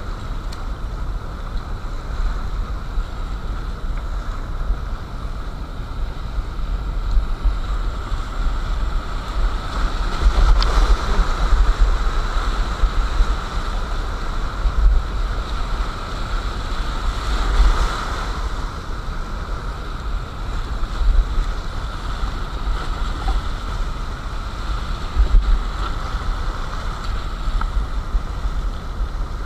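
Steady rush of whitewater from a rocky mountain river's rapids, heard from a kayak, under a low rumbling buffet on the microphone. The water noise swells louder twice, around a third of the way in and again past the middle.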